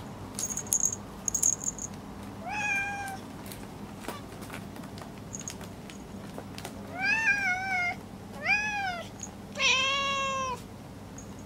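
A domestic cat meowing four times, each meow rising then falling in pitch: one at about two and a half seconds, then three close together near the end, the last the longest. A few light clicks in the first two seconds.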